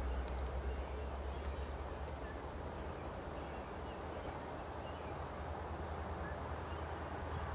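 Steady outdoor background of low rumble and hiss, with a few faint bird calls.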